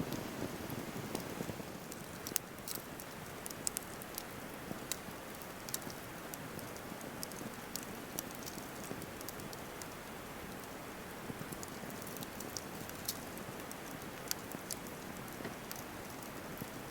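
Wood campfire burning: a steady hiss with irregular sharp crackles and pops from the burning wood.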